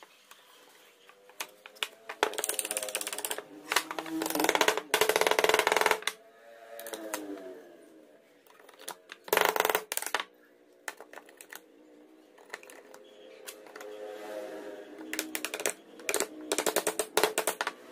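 Wood knocking on wood: rapid runs of taps as the joints of a pine frame are driven together with a wooden block and a heavy wooden beam used as a mallet. The knocks come in several bursts, the longest and densest about four seconds in.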